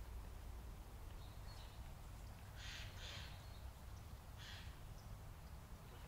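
Quiet outdoor ambience: a steady low rumble, a faint thin bird chirp about a second in, and three short harsh high sounds around three and four and a half seconds in.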